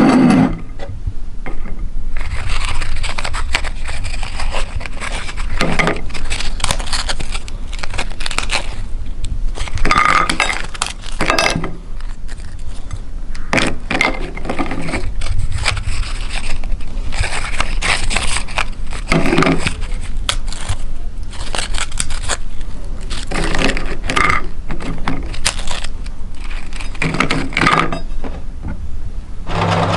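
Crisp sandwich cookies snapped and broken by hand over a ceramic plate: irregular cracks and crumbling, with broken pieces clinking and scraping on the plate.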